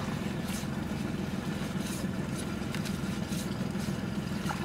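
Small fishing boat's engine idling steadily, with a few faint splashes and drips as a wet cast net is hauled up over the bow.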